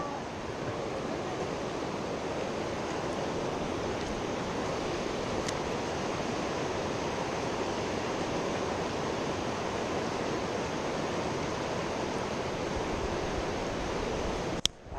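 Steady rushing of a mountain river's current, an even wash of flowing water that breaks off briefly with a click just before the end.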